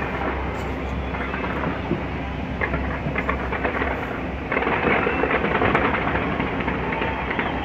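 Large fireworks display going off as a continuous deep rumble of bursts laced with dense crackling, growing louder about four and a half seconds in.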